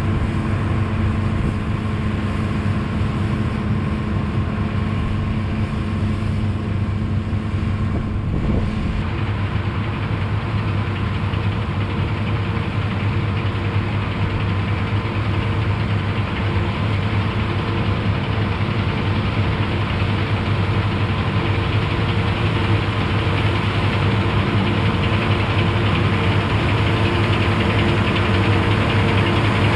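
Massey Ferguson 31 combine harvester running steadily while harvesting oats, its engine and threshing machinery making a continuous mechanical hum that grows slightly louder as the machine approaches.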